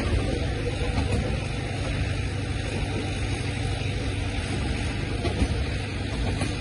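Open freight wagons of a coal train rolling slowly past, a steady rumble of steel wheels on rail. The lead locomotive is shut down and a banker locomotive is pushing the train from the rear.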